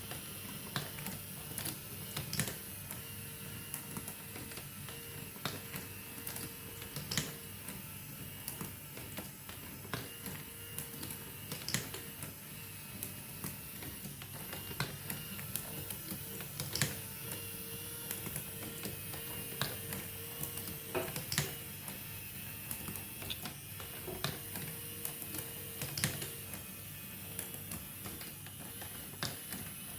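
Marbles rolling and clattering along a plastic marble run track, a steady rattle broken by many irregular sharp clicks as they drop and strike the pieces.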